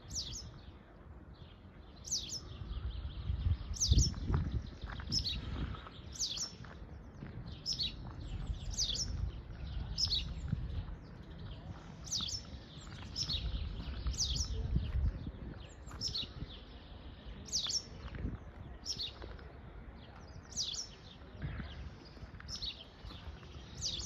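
A small songbird calling over and over, each call a short high note falling sharply in pitch, about one a second, with a low rumble underneath.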